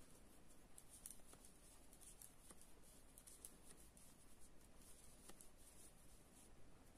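Faint, irregular light clicks and rustling of 3.5 mm knitting needles and yarn as garter stitch is knitted by hand.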